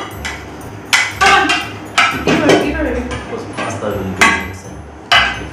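Plates knocking and clattering against the table and each other as they are picked up and set down: a few sharp knocks spread over several seconds, with some voices between them.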